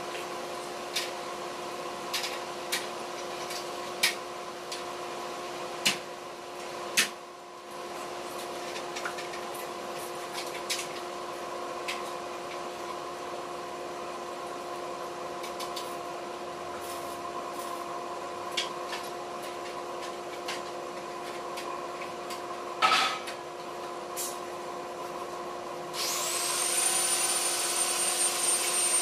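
Steel bars clanking now and then as they are handled, over a steady machine hum. About three seconds before the end a power tool, most like an angle grinder, starts up: its whine rises and settles into a high steady pitch with a loud hiss.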